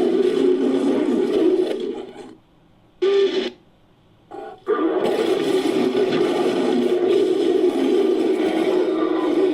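Designed creature roar made by layering recorded ape and big-cat roars. A long roar fades out about two seconds in, then come two short bursts with pauses between them, and then a long, steady roar.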